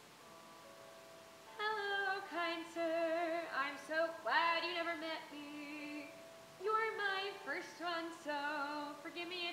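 A woman singing a musical-theatre song over a held instrumental accompaniment. Her voice comes in about a second and a half in, wavering in pitch with a rising swoop, drops out briefly in the middle while the accompaniment holds, then comes back.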